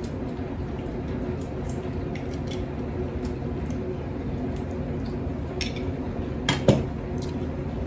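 Forks and knives clinking and scraping on ceramic plates during a meal, with a few sharper clinks about five and a half and six and a half seconds in, over a steady background hum.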